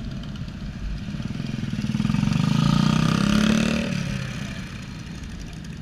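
A motorcycle engine running close by, growing louder to a peak about three seconds in and then fading away as it passes.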